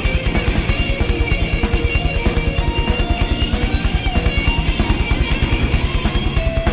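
Thrash metal band playing live, an instrumental passage: distorted electric guitars over rapid, steady kick-drum beats.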